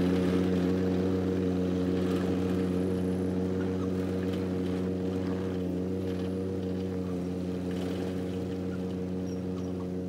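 John Deere 17D mini excavator's three-cylinder diesel engine running at a steady speed, slowly fading as the machine tracks away.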